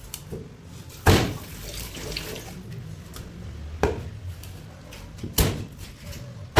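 A knife chopping through a barracuda on a cutting block: three sharp chops spread over the few seconds.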